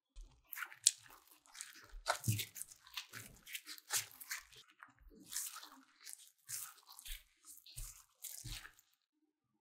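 Sticky black sesame rice-flour dough squishing as plastic-gloved hands knead it, in irregular squelches and glove rustles with a few soft thuds, stopping near the end.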